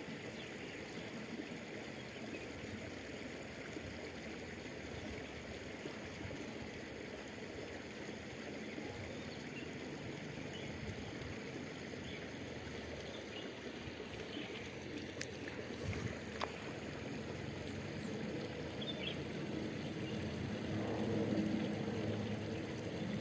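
Steady outdoor background hiss with no distinct source, a few faint ticks past the middle, and a slight rise in level near the end.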